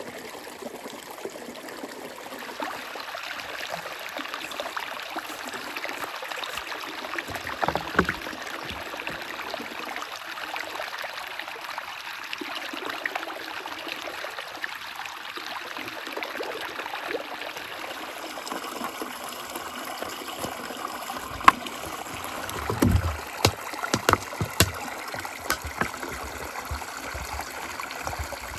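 A small forest stream running steadily, with a few sharp knocks and splashes over the last several seconds as a plastic bottle is dipped into the water.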